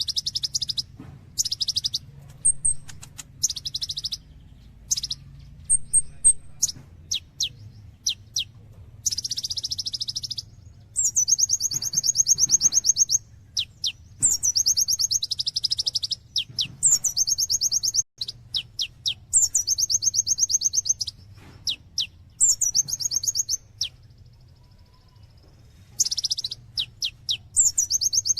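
A kolibri ninja sunbird singing energetically: high, fast, buzzy trills in bursts of about one to two seconds, several opening with a sharp downward-sweeping note, broken up by quick single chirps. A faint steady low hum runs underneath.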